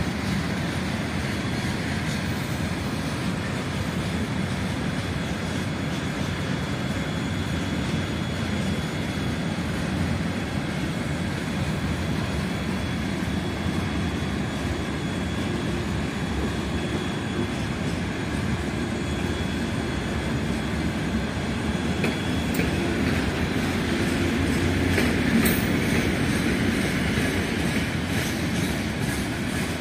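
Freight train of covered hopper wagons rolling past at close range: a steady rumble of wheels on rails with clattering over rail joints, and a faint thin wheel squeal through much of it. It gets somewhat louder for a few seconds near the end.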